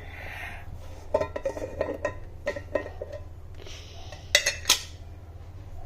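Small kitchen dishes and utensils clinking and tapping as salt is handled: a run of light taps, then two sharper clinks about four and a half seconds in.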